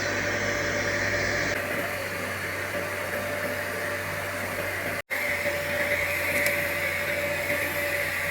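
Steady hissing hum of an orbital TIG welding machine running on stainless steel pipe, with a faint steady tone in it. It cuts out for an instant about five seconds in.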